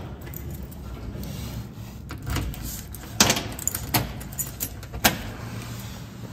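Keys jangling and an apartment door's lock and latch clicking as the door is unlocked and pushed open, with sharp clicks about three, four and five seconds in.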